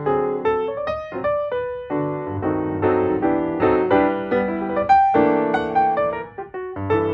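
Keyboard music: a melody of separate notes over held chords.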